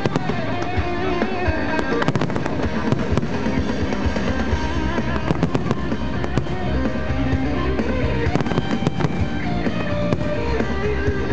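Aerial fireworks shells bursting in quick succession, many sharp bangs and crackles during the finale of a display, over loud music.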